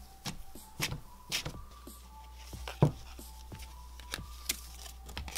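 Hands squishing and stretching cloud slime, making a string of sharp clicks and pops, the loudest a little past the middle, over faint background music.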